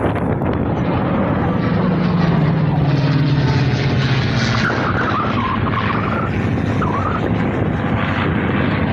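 Airplane engine noise from an aircraft flying past, a loud steady drone whose low hum slides slightly down in pitch about two to four seconds in.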